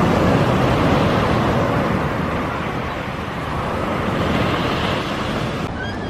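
Waves breaking and washing up a sandy beach: a steady rush of surf that swells near the start and again about four seconds in.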